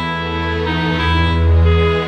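Instrumental background music: layered, held notes over a low bass that swells and fades.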